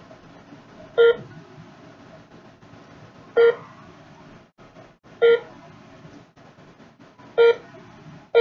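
A ZKTeco fingerprint attendance terminal beeping during fingerprint enrollment: four short, identical electronic beeps about two seconds apart.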